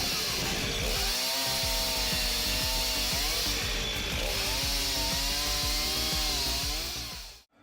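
Frame-mounted chainsaw running and cutting logs, its pitch sagging under load and recovering several times. It fades out near the end.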